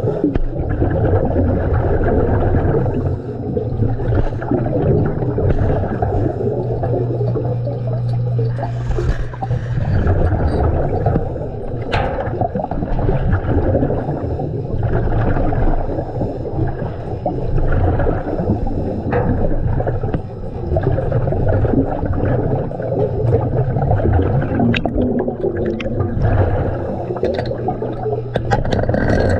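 Underwater rumble and gurgle of a diver's breathing bubbles, going on steadily, with a few sharp clicks now and then.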